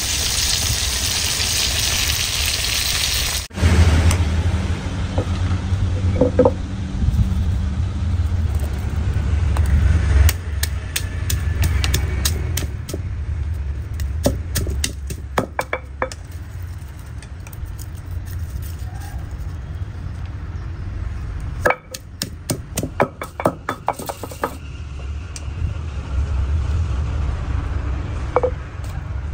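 Gongura leaves, tomatoes and green chillies sizzling in a pan; the sizzle cuts off a few seconds in. It gives way to a wooden pestle knocking and crushing garlic cloves in a granite mortar, in quick runs of knocks, over a low rumble.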